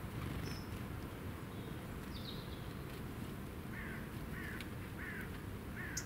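Wild birds calling: a short high call, then a falling call, then four short falling call notes about two-thirds of a second apart in the second half, over a low steady background rumble.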